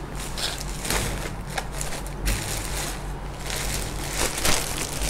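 Plastic-wrapped clothing packets rustling and crinkling as they are handled, in a run of irregular swishes.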